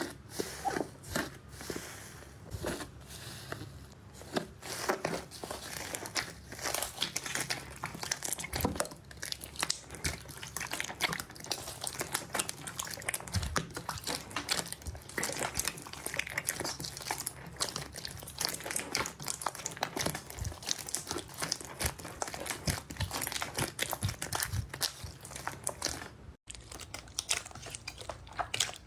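Slime being squeezed and pressed by hands, making dense, irregular crackling clicks and pops, with a brief break near the end.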